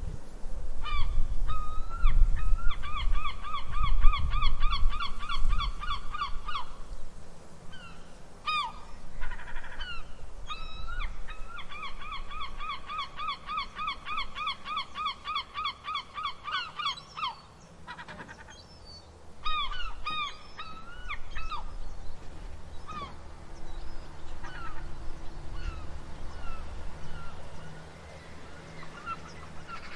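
Seagulls calling: two long runs of rapid, laughing calls at about four or five a second, each lasting several seconds, with single yelping calls scattered between and after them. A low rumble sits underneath, strongest in the first several seconds.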